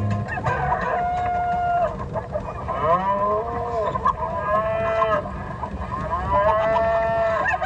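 Recorded cow mooing played as a ride sound effect: several long, drawn-out moos, one after another.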